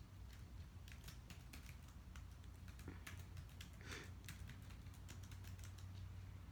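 Faint typing on a computer keyboard: an irregular run of quick key clicks starting about a second in, over a low steady hum.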